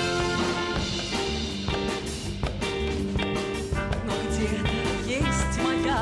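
Symphony orchestra with a brass section of trombones and trumpets playing an instrumental passage of an upbeat song over a steady beat. Near the end a woman's singing voice comes in.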